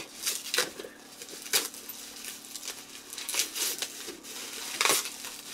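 Plastic packaging being crinkled and torn by hand as a package is unwrapped: irregular crackles and rustles, with sharper tears about a second and a half in and near the end.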